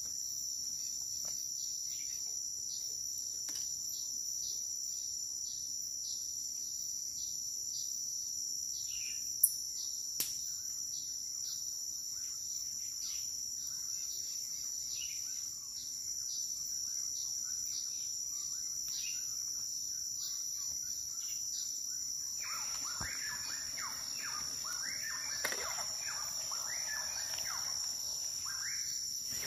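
Steady high-pitched insect drone in a forest, with two sharp clicks about nine and ten seconds in. For the last seven seconds a bird chirps repeatedly over it.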